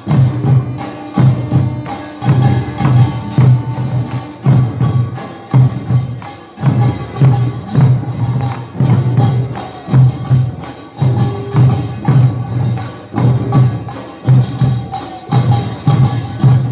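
Korean nongak farmers' percussion: drums and small gongs beating out a steady, driving rhythm, with loud low drum strokes under sharp metallic strikes.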